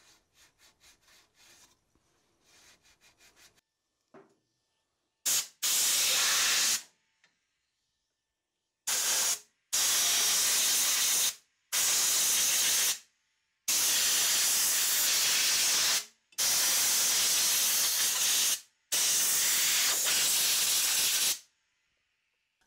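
Compressed-air blow gun blowing off a car's rear wheel hub in about eight hissing blasts, each one to two and a half seconds long, with short gaps between them.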